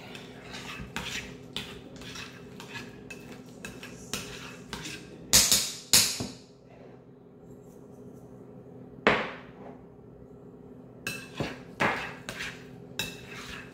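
A metal utensil clinking and scraping against a glass mixing bowl while egg salad is stirred, with sharp knocks about five, six and nine seconds in and a quick run of clicks near the end.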